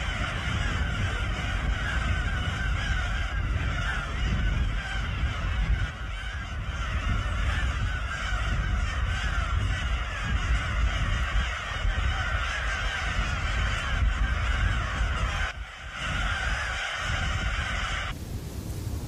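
A large colony of black-tailed gulls calling all at once in a dense, continuous chorus, over a low rumble. Near the end the calls stop abruptly and give way to an even hiss.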